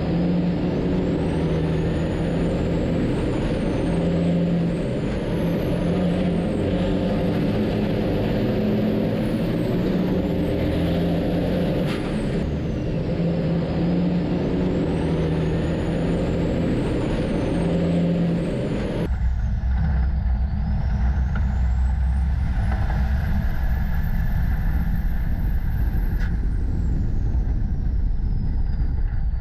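Diesel engines of racing semi-trucks running hard around the oval, with high turbo whistles that rise and fall as the drivers work the throttle. About 19 seconds in the sound changes abruptly to a deeper, closer engine drone from one truck, its turbo whistle climbing and holding.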